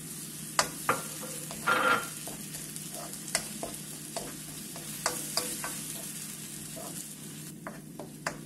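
Chopped onion, pepper and freshly added tomato sizzling in a nonstick wok while a wooden spoon stirs, knocking and scraping against the pan in scattered sharp clicks. The loudest scrape comes at about two seconds.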